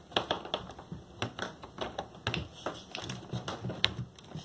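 Quick irregular clicks and taps of hands handling the plastic front bezel and wiring of an opened original Xbox console, with one sharper click near the end.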